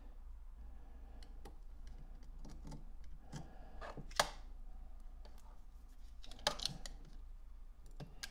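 Faint scraping and small clicks of a knife blade picking at a brittle sticker on a painted alloy SU carburettor dash pot, with one sharper click about four seconds in and a few more scrapes near the end.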